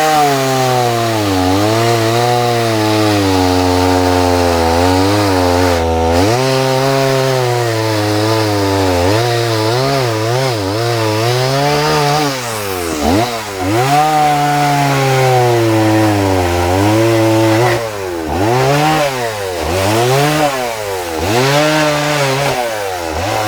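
Two-stroke gas chainsaw with a small carving bar cutting into a log, its engine pitch sagging under load in each cut and climbing back as it clears. Near the end the cuts come as quick short dips and revs.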